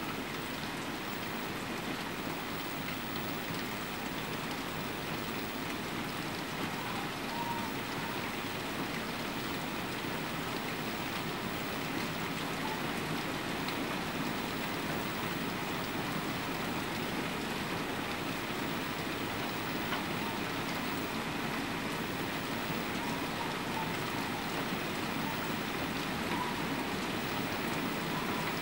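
Hailstorm: hail pouring steadily onto moss-covered rock and conifer branches, a dense, even hiss of countless small impacts that grows a little heavier toward the end.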